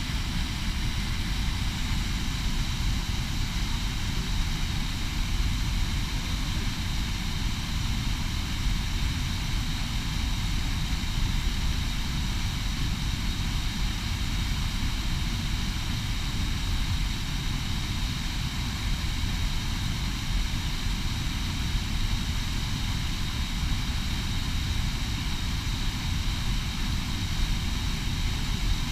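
Waterfall rushing steadily, a continuous roar of falling water with a strong low rumble.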